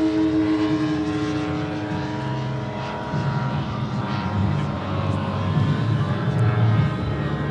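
JetCat turboprop engine and five-blade propeller of a 1:3 scale Grob G 120TP model plane in flight: a steady droning tone with overtones that slides slightly lower in pitch and fades over the first two seconds as the plane draws away, growing faintly again near the end.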